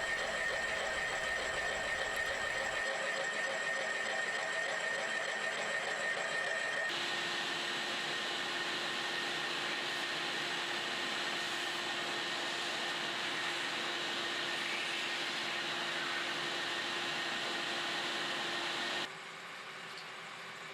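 Kearney & Trecker milling machine running steadily under power feed while a Criterion boring head cuts out a galled bore, a continuous machine hum and whine. The tone shifts abruptly about 3 and 7 seconds in, and the sound drops quieter a little before the end.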